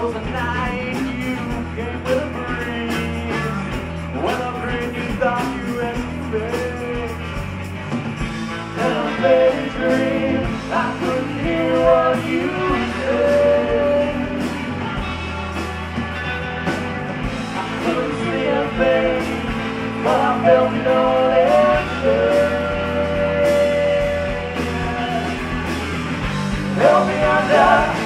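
Live rock band playing: electric guitars, bass and drums, with a woman singing over them in long, held notes, the voice strongest from about nine seconds in.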